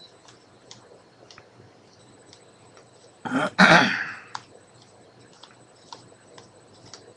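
Trading cards being thumbed through one by one in the hands, making faint scattered clicks and snaps. About three and a half seconds in, a person clears their throat loudly.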